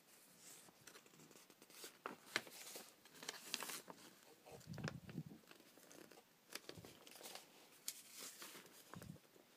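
Faint rustling and crinkling of paper sheets being handled and leafed through, with soft thumps about five seconds in and again near the end.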